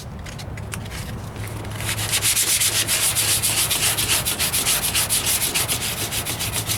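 220-grit sandpaper rubbed back and forth by hand over dried filler primer on a steel wheel arch, in quick, even strokes. It starts softly and gets louder about two seconds in.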